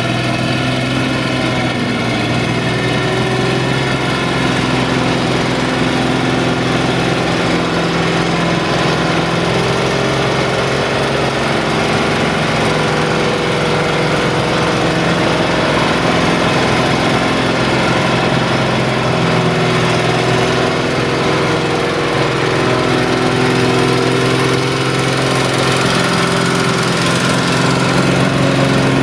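Fiat 1380 DT tractor's diesel engine running steadily and loudly, its pitch sagging slightly and recovering a couple of times.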